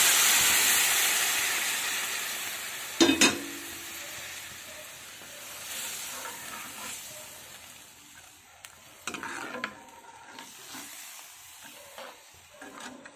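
Milk hitting a hot pan of ghee-roasted vermicelli and dry fruits: a loud sizzle that dies away over several seconds as the milk takes up the heat. A steel ladle knocks twice against the pan about three seconds in, and there are softer clinks and scrapes of stirring later.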